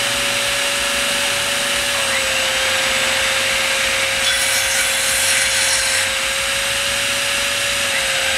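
Corded circular saw cutting through a wooden board, with an angle grinder and an air compressor running at the same time, all three drawing on the truck's outlets under load. A steady motor whine holds throughout, and the cutting noise grows harsher from about four to six seconds in.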